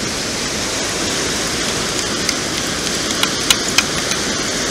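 Perforated metal sand scoop digging and sifting sand, with a few sharp metallic clinks from about two seconds in, the loudest two near the end, over a steady rushing beach noise.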